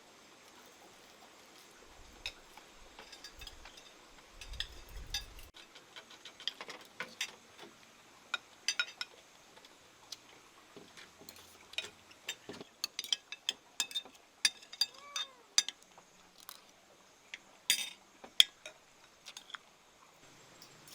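Spoons and dishes clinking during a meal: scattered light taps and clicks of utensils against bowls, coming thicker in the second half.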